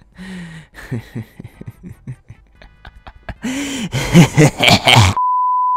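Inserted comedy sound effects: a loud, rough, shout-like cry about three and a half seconds in, cut off near the end by a steady one-tone censor beep.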